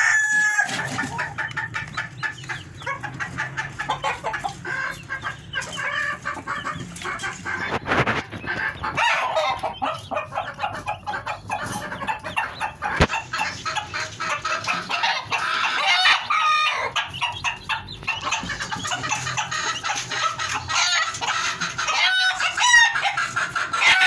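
A flock of Aseel chickens clucking and calling continuously in a dense overlapping chatter, with a couple of sharp knocks partway through.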